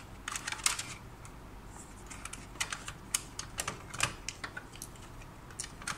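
Irregular small plastic clicks and taps as ink dampers are pulled off an Epson L1800 print head and handled in the fingers.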